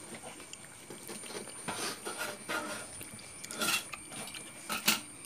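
Several people coughing and sneezing in short harsh bursts, about four of them with the loudest near the end, set off by the heat of a fiery chili dipping sauce.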